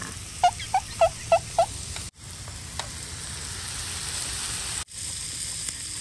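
Ribeye steak sizzling in a hot frying pan on a portable gas stove, a steady frying hiss. About half a second in, five quick, loud, high chirps come in a row, and the sizzle drops out for an instant twice.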